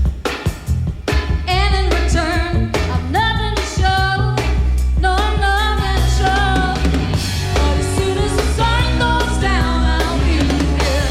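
Live pop-rock band playing: a female lead vocal sung over a heavy electric bass line and a drum kit, a concert taped onto cassette off an FM broadcast.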